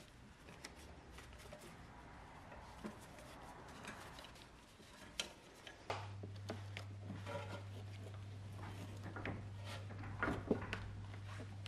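Scattered small clicks and taps of hand work on a car's rear brake. A screwdriver fastens the electric parking brake actuator back onto the caliper, and after that the brake parts are handled by hand. A low steady hum runs underneath from about halfway.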